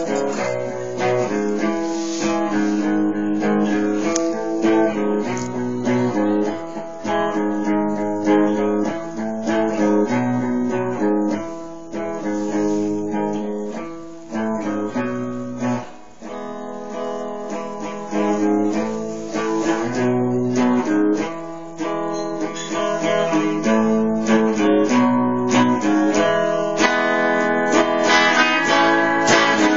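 Acoustic guitar music: chords strummed and picked, changing every second or two.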